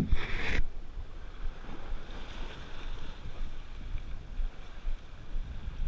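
Wind buffeting the microphone over sea water washing among shoreline rocks, with a short loud rush of noise in the first half second.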